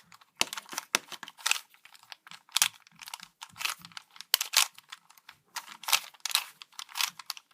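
3x3 Rubik's Cube being turned by hand: an irregular run of sharp plastic clicks and clacks, several a second, as the layers are twisted.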